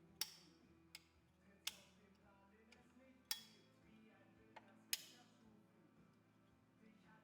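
Sharp metal-on-metal clicks and clinks, about six in all, the loudest near the start, around a second and a half in, past three seconds and near five seconds in, as steel engine parts are set onto a motorcycle crankshaft and its key.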